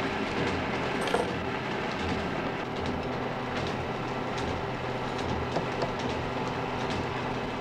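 Workshop polishing machinery (a Pliestbock, the wheeled stand that polishes scissor eyes with emery) running with a steady, even noise and a low hum. A few light metallic clicks sound over it, the sharpest about a second in.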